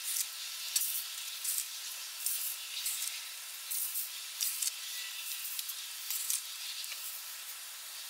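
Dry sand being scooped and poured into a small bucket to fill a sand thermal-mass heater: a string of short hissing scrapes and pours, roughly one every second or less, over a steady hiss.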